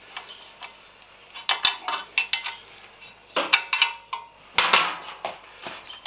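A 13mm spanner and an Allen key clinking on the bottom bolts of an alloy sump guard as they are tightened: an irregular run of sharp metallic clicks and clanks, loudest in the middle.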